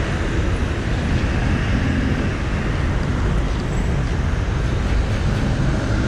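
Steady road traffic on a busy multi-lane city boulevard: a continuous mix of car, van and truck engines and tyre noise.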